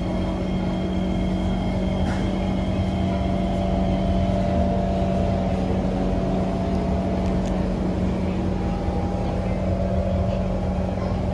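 Steady hum inside a Kawasaki C151 metro train car standing at a station platform, the train's on-board equipment running while it waits.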